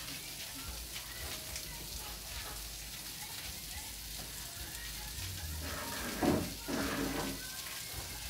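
Food sizzling over an open wood fire, a steady hiss with small crackles. A brief voice sounds a little after six seconds.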